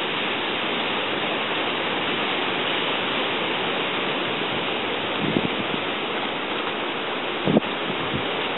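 Steady rushing hiss with no clear source, broken by two soft low thumps about five and seven and a half seconds in.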